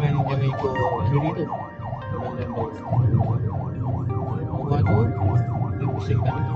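Emergency vehicle siren in a fast rising-and-falling yelp, a few sweeps a second, heard from inside the responding fire-and-rescue van's cab, over the steady low rumble of the engine and road.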